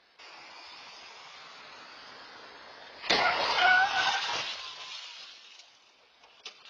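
A vehicle collision: a sudden loud crash about three seconds in, with the noise of the impact and breaking debris fading over the next second and a half. Under it runs a steady hiss of road and camera noise.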